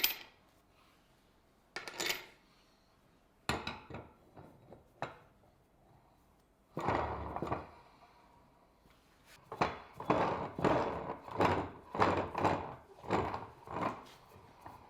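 Hard maple Moxon vise parts and hardware knocking and thunking as the vise is put together: a few separate thunks, a longer scrape about seven seconds in, then a run of quick knocks, about two a second, near the end.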